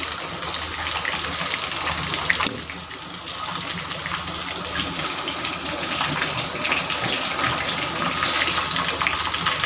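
Egg-and-cornflour-coated pieces of meat deep-frying in hot oil in a steel wok: steady sizzling with dense crackling, dipping a little in level about two and a half seconds in.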